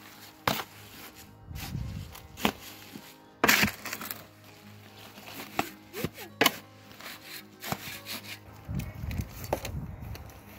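A spade stirring and chopping wet soil-block mix in a plastic tub: irregular sharp clacks as the blade strikes the tub, the loudest about three and a half seconds in, with rough scraping through the mix between them.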